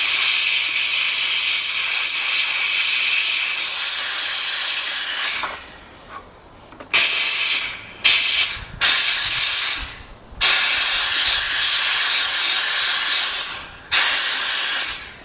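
Steam cleaner's jet hissing loudly as it blasts crud, oil and rust out of a sewing machine's insides. One long blast of about five seconds, a short pause, then a series of shorter blasts.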